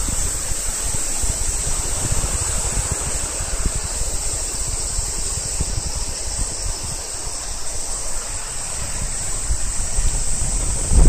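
Cicadas calling in a steady high-pitched drone, with wind rumbling on the microphone.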